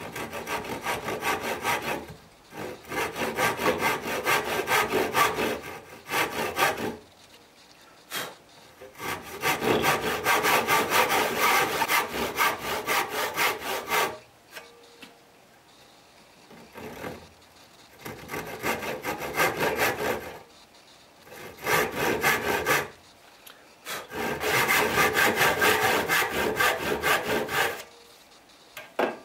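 Hand saw cutting through a small piece of wood with quick back-and-forth strokes, in several runs separated by short pauses.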